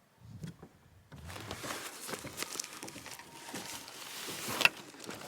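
Rustling and crinkling of a fabric sketching bag and its contents being handled close to the microphone. It starts after about a second of quiet, and there is one sharp click near the end.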